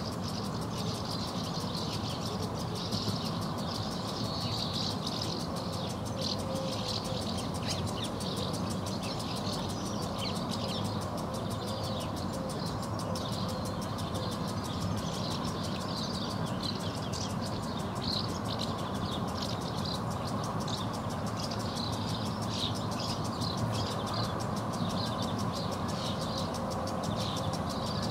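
Swallows and house martins twittering in short, scattered chirps, over a steady low hum of distant traffic.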